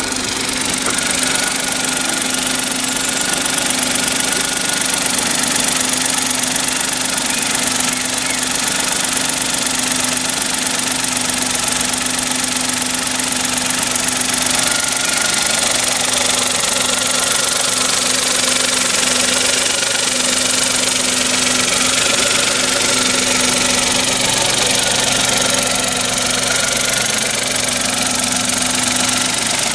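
Kia Picanto 1.0-litre G3LA three-cylinder petrol engine idling steadily, heard close up with the bonnet open.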